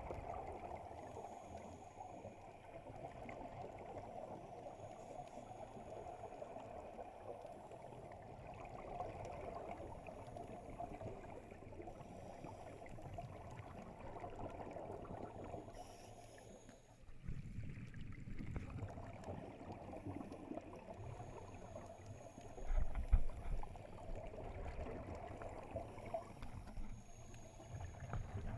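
Muffled underwater sound through a camera housing: the steady hiss and gurgle of scuba divers' exhaled bubbles from their regulators. About 17 seconds in it turns to a deeper rumble, loudest around 23 seconds in.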